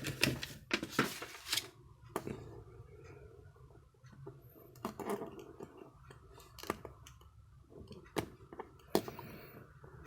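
Small plastic clicks and scrapes from a Toyota Prius remote key fob being handled and pried at to get its CR1632 coin-cell battery out. A quick run of clicks in the first two seconds, then single clicks every second or two.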